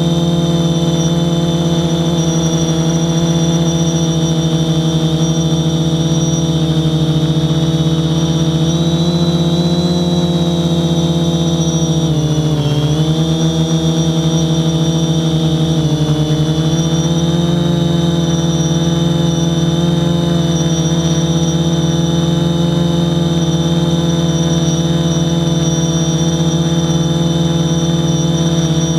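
Quadcopter's electric motors and propellers whining steadily at a hover, heard from a camera mounted on the quadcopter itself. The pitch dips briefly about twelve seconds in and again a few seconds later as the motors ease off and recover.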